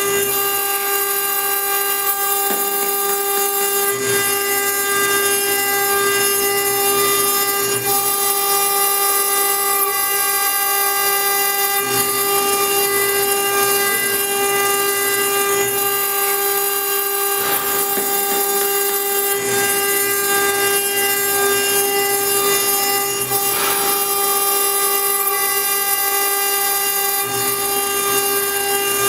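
CNC router spindle running with a steady high whine as a small conical bit engraves a wet stone slab under water coolant, with a gritty cutting noise beneath it. A few brief louder scrapes come in the second half.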